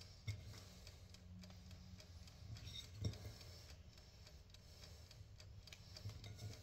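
Near silence: faint room tone with light ticking and two soft clicks, one about a third of a second in and a sharper one about three seconds in.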